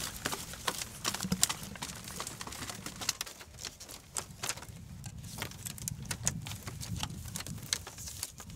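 Irregular light knocks and clicks, several a second, like hard objects being handled or tapped.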